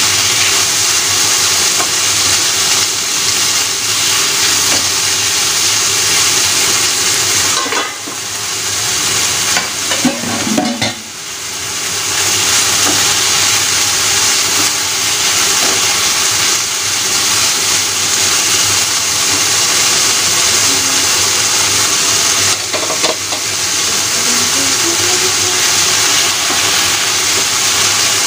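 Beef slices and shiitake mushrooms sizzling steadily in a hot frying pan as they are stir-fried, with a wooden spatula stirring and scraping through them. The sizzle briefly drops twice, about a third of the way in.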